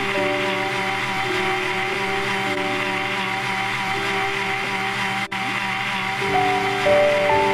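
Electric mixer grinder running steadily, grinding sesame seeds with water into milk, under background music of held notes that change pitch in steps. The sound breaks off for an instant about five seconds in, then carries on.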